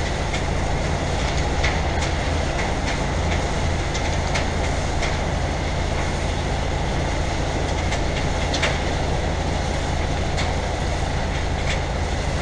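Steady diesel engine rumble heard from inside a tipper truck's cab, with scattered light clicks and rattles.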